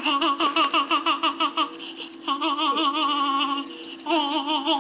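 Young child laughing in three long runs of rapid, pulsing giggles, with short breaks between them.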